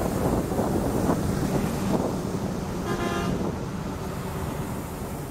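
Traffic on a flooded, wet road: truck and motorbike engines running, with tyres hissing through water. A vehicle horn toots briefly about three seconds in.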